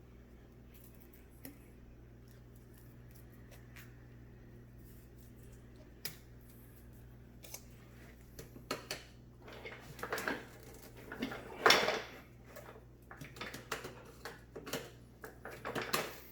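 Faint steady room hum, then from about eight seconds in a run of irregular clicks, taps and clatters from the plastic parts of a Hoover Sprint hand vacuum being handled, loudest near the middle of that stretch.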